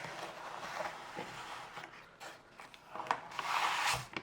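Paper and cardboard packaging being handled, with an irregular rustling and rubbing that grows louder for about a second near the end.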